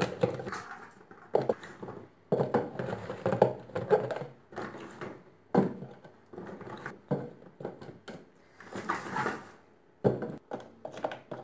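Small gherkins being picked out of a plastic bowl and packed by hand into a ribbed glass jar: irregular knocks and rubbing of cucumbers against the glass and against each other, in short clusters a second or so apart.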